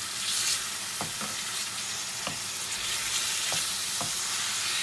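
Chicken pieces with garlic paste and chopped green chilli sizzling in hot oil in a metal frying pan, the sizzle flaring briefly near the start. A wooden spoon stirs them, knocking lightly against the pan about five times.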